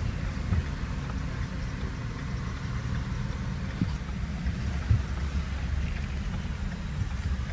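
Steady low rumble of a car heard from inside its cabin, with a few brief soft knocks.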